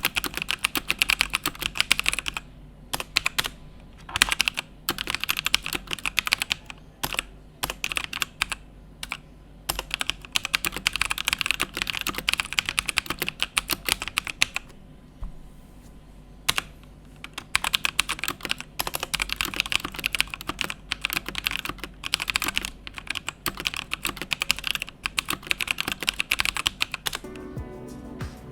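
Fast typing on a Rexus Legionare MX3.1 mechanical keyboard with brown (tactile) switches: rapid key clicks in bursts with short pauses. Background music comes in near the end.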